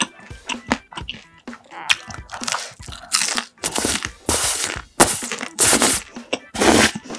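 Close-miked crunching as a bite of deep-fried sweet and sour pork (tangsuyuk) in crisp batter is chewed. A few small wet clicks come first, then from about two and a half seconds in a run of loud, crisp crunches.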